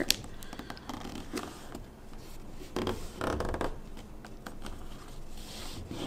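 A sheet of paper being handled and folded by hand on a tabletop: soft rustling and creasing with small crackles, a little louder about three seconds in.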